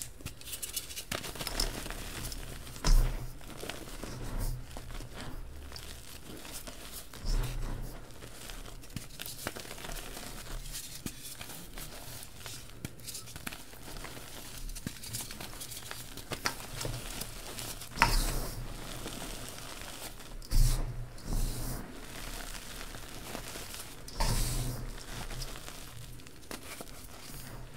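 Reformed gym chalk block being crushed and crumbled by hand into a metal bowl of loose chalk powder: a steady crackly crumbling, broken by about five louder crunches as chunks break apart. Near the end, loose powder sifts through the fingers.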